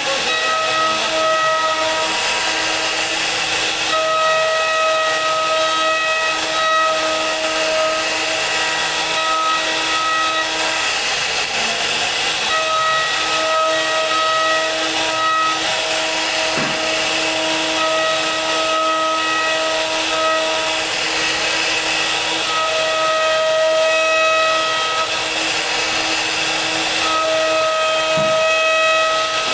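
CNC router spindle running at high speed with its bit cutting a relief pattern into a wooden board: a steady hiss of cutting under a constant hum. A higher pitched whine comes and goes in stretches of a few seconds.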